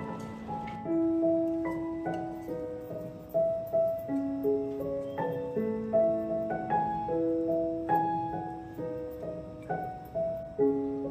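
Background piano music: a gentle melody of single notes, each struck and then fading.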